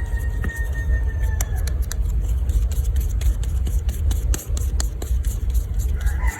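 Hands working flour dough for dumplings: soft knocks and clicks over a steady low rumble.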